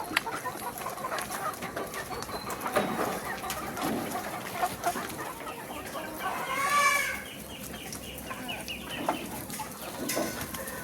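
Chickens clucking, with one rooster crow rising and falling about six seconds in.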